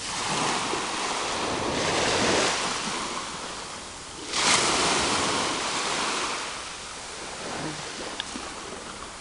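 Sea waves breaking on the shore: one wave builds and peaks about two seconds in, and a second breaks with a sudden surge about four and a half seconds in, then washes out slowly.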